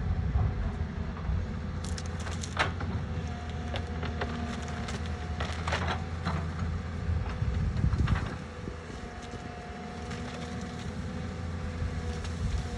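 Doosan DX 140 excavator's diesel engine running steadily under load with a hydraulic whine, while wood cracks and splinters in several sharp snaps as the machine works on a big tree, most around two to three seconds in and again around six and eight seconds.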